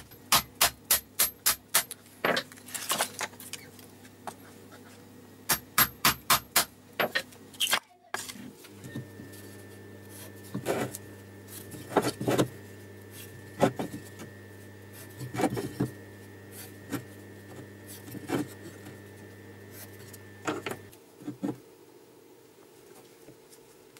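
A steel chisel driven with quick repeated strikes into a short log of apple wood to split it, in runs of sharp hits about four a second. About eight seconds in, the strikes stop and quieter bench work follows: a metal square and a pencil and scriber worked over the log's end grain, with scattered light clicks and rubs over a steady hum.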